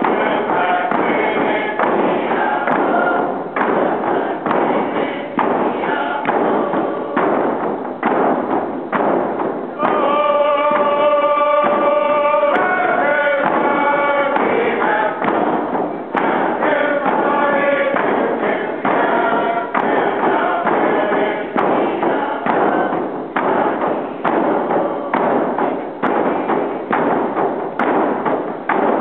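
Group of voices singing a Northwest Coast First Nations song over a steady drum beat of about one and a half beats a second. About ten seconds in the singing comes through most clearly, with long held notes for several seconds.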